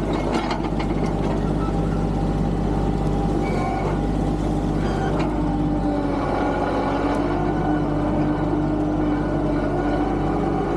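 Tractor engine running steadily under work, with a few knocks and clanks in the first second or so and again about five seconds in.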